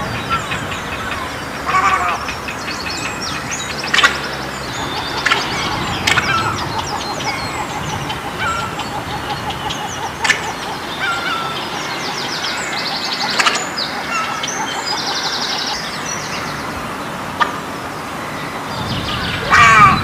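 Egrets calling: short calls at irregular intervals, the loudest near the end, with higher rapid rattling calls in between.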